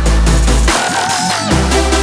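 Electronic dance music with a heavy, sustained bass and a synth melody that wavers in pitch about halfway through.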